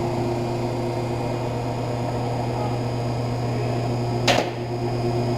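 A steady electrical hum, like a fan or heater running, with one short knock about four seconds in.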